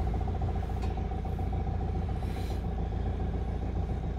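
A sailing yacht's auxiliary engine running steadily at low speed: a constant low rumble with a steady hum.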